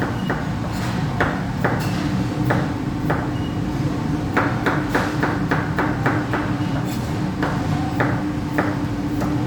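Kitchen knife chopping raw potatoes into French-fry sticks, blade knocking on the cutting board in quick uneven runs of strokes. A steady hum comes in about two seconds in.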